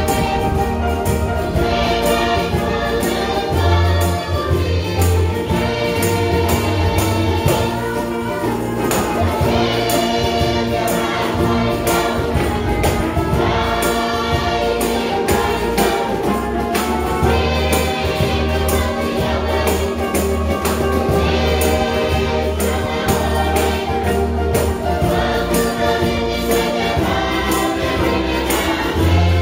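A mixed choir singing together in harmony, accompanied by strummed acoustic guitars and ukuleles and shaken tambourines keeping a steady beat.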